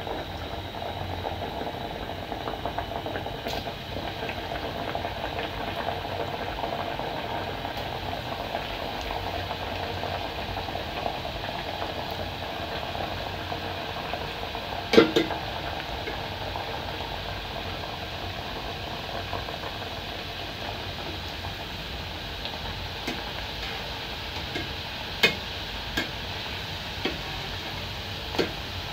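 Mandazi dough deep-frying in hot oil, sizzling steadily, while a wire mesh skimmer stirs and turns the pieces in the metal pot. A sharp metal knock about halfway through and a few lighter clicks near the end come from the skimmer striking the pot.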